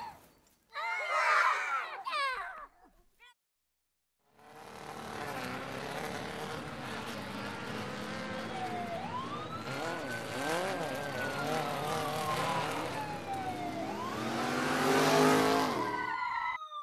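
Dubbed-in motor vehicle sound effect: a steady engine hum with a pitch that climbs, holds and then glides slowly down, twice, getting loudest near the end. A short burst of sound comes before it, followed by about a second of silence.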